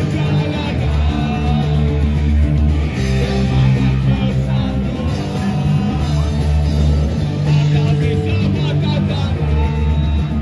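Loud punk rock from a band: electric guitar and drums with singing over them.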